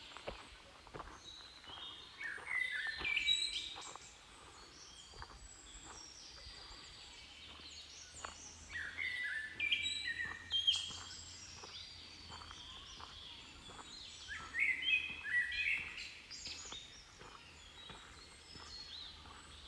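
Small songbirds chirping and twittering in three lively bursts. Faint ticks run in the background.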